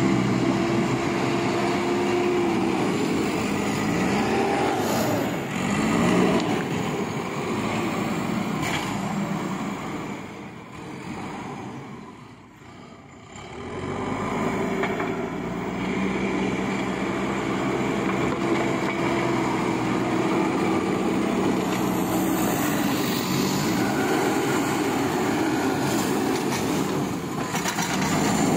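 JCB 3DX backhoe loader's diesel engine running as the machine works soil with its front bucket, its note rising and falling several times as it is revved. It drops to a quieter stretch about halfway through, then comes back up.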